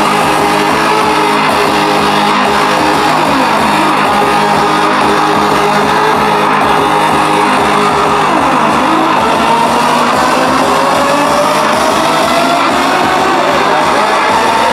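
Loud electronic dance music with a pulsing beat and a sweep that rises steadily in pitch through the second half.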